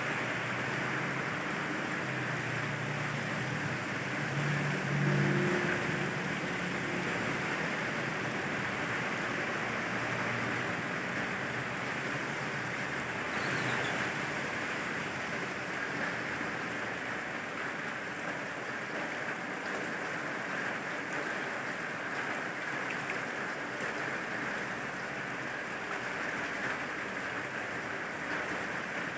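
Steady rain falling, with the low rumble of a passing vehicle swelling and fading a few seconds in.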